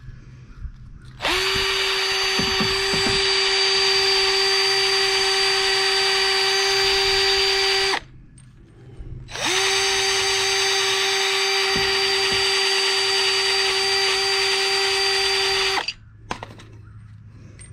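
An electric power tool running at full speed in two long runs of about six to seven seconds each, with a short pause between. It gives a steady high whine that spins up at the start of each run and cuts off sharply.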